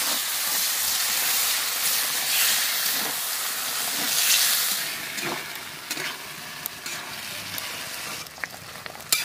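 Chicken feet and potatoes in masala gravy sizzling in a steel kadai while being stirred with a metal spatula. The sizzle is loudest for the first half, then eases off, with short scrapes and clicks scattered through the rest and one sharp click near the end.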